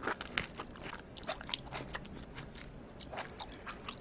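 Close-miked mouth sounds of a person chewing food: an irregular run of sharp, wet clicks and smacks, busiest near the start and again around the middle.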